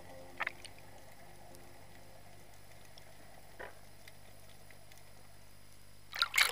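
Underwater ambience heard through an action camera's waterproof housing: a faint steady hiss with a few scattered clicks, then a louder crackling burst just after six seconds, after which the sound cuts off abruptly.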